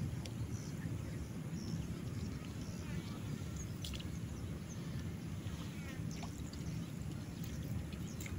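A steady low rumble of wind buffeting the microphone beside open water. A few faint high bird chirps and small clicks sit over it.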